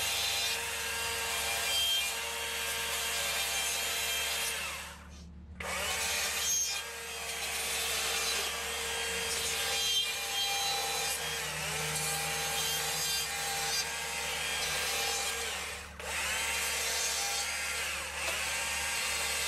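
Small-bar chainsaw running at high speed as its chain cuts into wood, carving branch cuts into a small tree carving. Twice, about five seconds in and again near the end, the saw briefly eases off and speeds back up.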